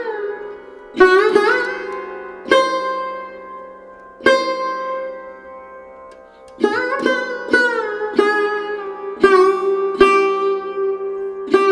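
Indian-style instrumental music on a plucked string instrument: single notes plucked in short phrases, several bending up in pitch as they start and ringing out, over a steady drone. There is a lull with one long ringing note in the middle, and the notes come quicker again in the second half.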